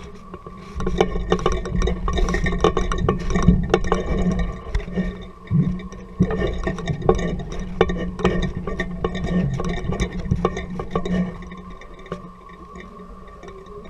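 Kite-suspended camera rig rattling and clicking as it swings on the kite line, over a steady hum. The clicking is busiest from about a second in until near the end.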